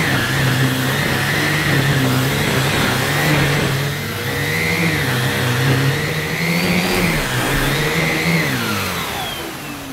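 Numatic Henry cylinder vacuum cleaner running with a full-sized Airobrush turbo brush on a rug, its motor pitch wavering up and down. Near the end the motor winds down with a falling whine.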